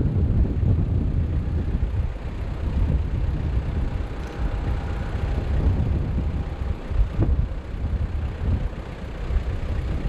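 Airliner jet engines rumbling, mixed with gusty wind buffeting the microphone, with a faint steady whine in the middle.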